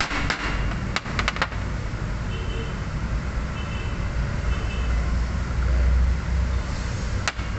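A hammer taps a quick run of strikes about a second in and once more near the end, driving a part into the steering rack to seat it. Under the taps runs a steady low rumble that grows loudest about six seconds in.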